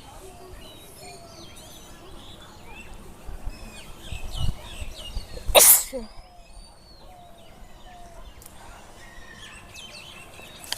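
Small birds chirping throughout, and about five and a half seconds in a person gives one loud, short sneeze.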